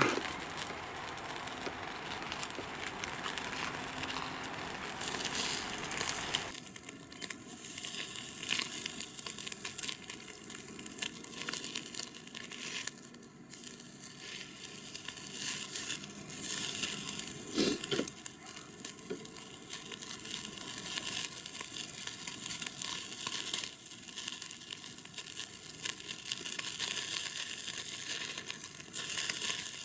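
Meat sizzling on the grate of a small charcoal shichirin grill, with fat crackling and sharp pops here and there as it drips onto the coals.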